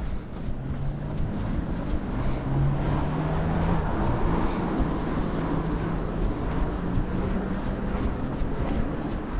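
A motor vehicle passing close by: its engine hum and tyre noise grow over the first few seconds, hold, then fade near the end, over the runner's rhythmic footfalls.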